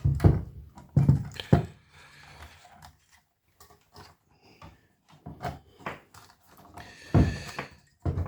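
Irregular knocks and clunks of hands working an access point's main circuit board loose from its metal heatsink housing, where heat transfer pads hold it stuck; a few clusters of handling sounds with quiet pauses between.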